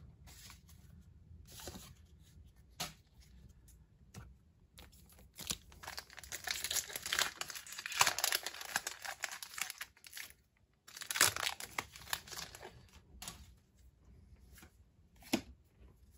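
Pokémon Battle Styles booster pack's foil wrapper being torn open and crinkled by hand. The crinkling comes in stretches with short gaps, loudest about halfway through and again a few seconds later.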